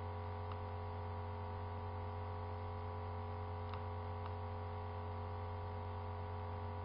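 Steady electrical mains hum in the recording, with a few faint clicks.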